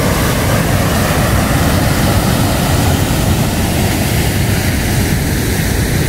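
Waterfall on a river in heavy flow, close up: a loud, steady rush of falling and churning water.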